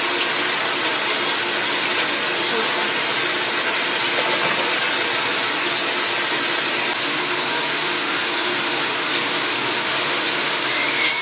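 Loud steady rushing noise with a faint hum underneath, running evenly and cutting off suddenly at the end.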